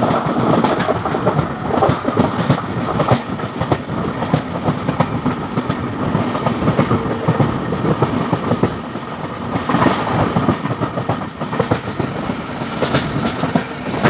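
LHB passenger coach running at speed: a continuous rumble of steel wheels on the rails, with irregular clicks and knocks from the track throughout.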